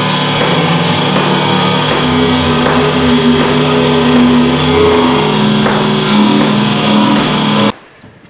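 Music with held low notes under a dense, layered texture; it cuts off abruptly near the end.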